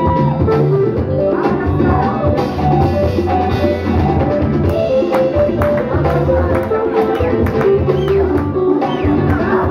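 Loud breakbeat music with a steady drum beat and a melodic line, played over the PA for the dancers.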